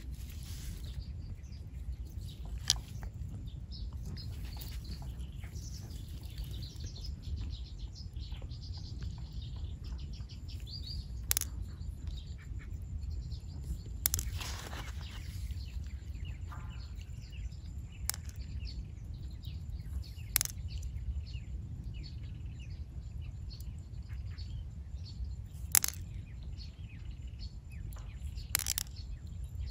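Sharp clicks every few seconds as freshwater pearls are picked from the mussel and dropped into the empty nacre shell half, over a steady low rumble, with faint bird chirps.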